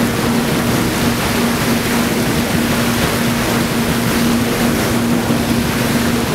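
Passenger ferry under way: its engine gives a steady low hum under the even rush of water along the hull.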